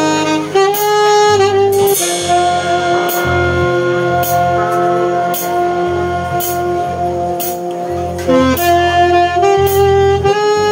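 A small brass band playing a slow tune, with saxophone leading on long held notes over brass, a sustained bass line and drum kit. A cymbal strikes about once a second.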